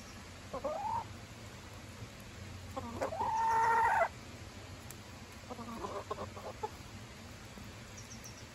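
Hens calling while they eat: a short rising cluck, then a loud drawn-out call lasting about a second near the middle, then a softer cluck.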